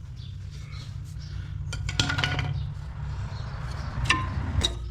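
Metal brake parts, pads and their clips, clinking and clicking as they are worked off the caliper bracket and handled: a few sharp metallic clinks with a short ring, about two seconds in and again near the end, over a steady low hum.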